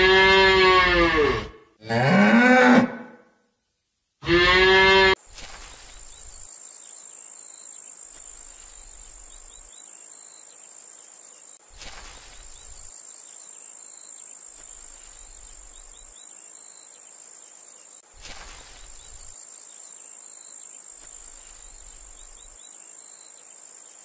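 Cows mooing: three long moos in the first five seconds. Then a quieter steady high-pitched insect chirring carries on to the end.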